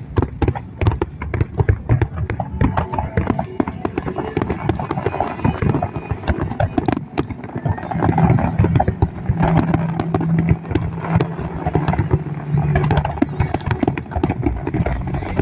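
Aerial fireworks display going off continuously: a dense, irregular stream of sharp bangs and crackles over a constant low rumble.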